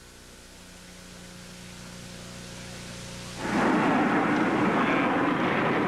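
Jet noise from low-passing Grumman A-6E Intruder twin-jet attack aircraft: a faint hum that slowly grows louder, then about three and a half seconds in a sudden jump to a loud rushing roar.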